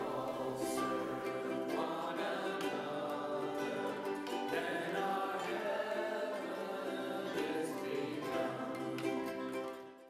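Ukulele ensemble playing with singing voices, fading out near the end.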